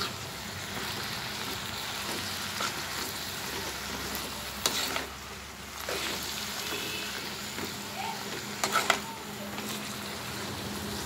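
Chopped leafy greens, tomatoes and lentils sizzling in a metal pot as a metal spoon stirs them, with a few sharp clinks of the spoon against the pot about halfway through and again as a quick cluster later on.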